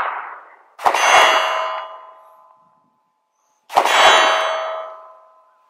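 Two 9mm shots from a Sig Sauer P320 Compact pistol, about three seconds apart. Each shot is followed by the long, fading ring of a steel target being hit.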